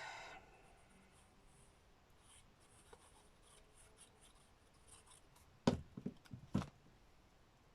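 Paper being handled and rubbed on a craft desk, with faint scratching, then a quick cluster of sharp taps and knocks about six seconds in.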